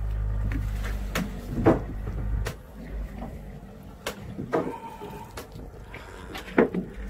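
A motor fishing boat's low steady engine hum that drops away about two and a half seconds in, with scattered sharp knocks and clatters on the deck.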